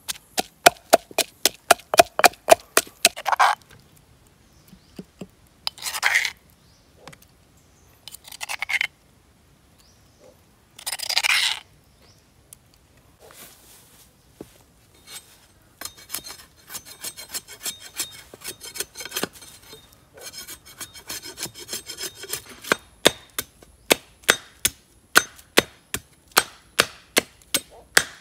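A wooden pestle pounding quickly in a stone mortar, then three short rasping scrapes. After that comes a long run of cleaver strikes chopping at wood on a tree stump, about two a second by the end.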